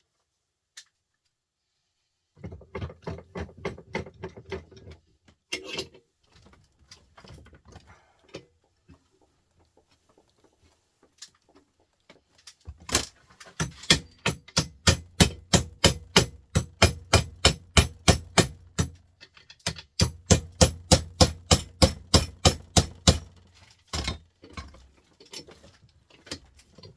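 Repeated hammer blows on metal scrap printer parts, about three a second in a long steady run through the middle of the stretch, after a shorter, lighter series of taps near the start. The stubborn part is slowly coming free.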